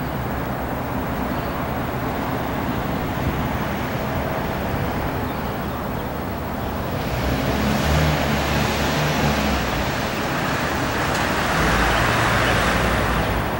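Jet engine noise of an Airbus A321neo on final approach, its CFM LEAP-1A turbofans at low approach power. It is a steady rushing roar that grows louder and brighter from about halfway as the aircraft comes closer, over gusty wind rumble on the microphone.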